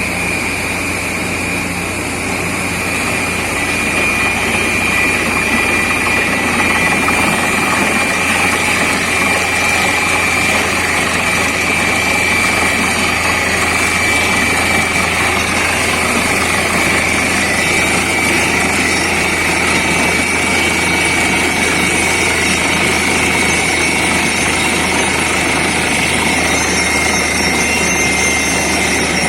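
Borewell drilling rig and its air compressor running steadily: a dense machine noise with a steady high whine over a low hum.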